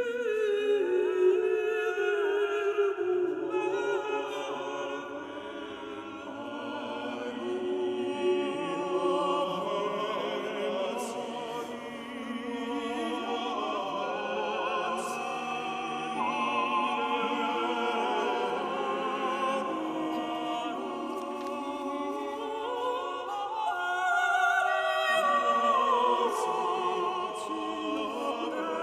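Choir singing 15th-century sacred polyphony, several voice parts moving against each other in long held notes.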